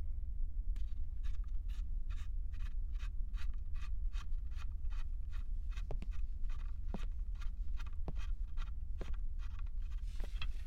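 Rhythmic scratchy strokes, about three a second, with a few heavier knocks in the second half, over a steady low hum.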